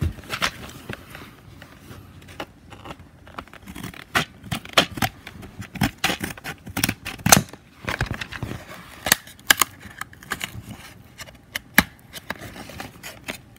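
Clear plastic blister packaging crackling and clicking as hands work it open, in irregular sharp clicks and crinkles.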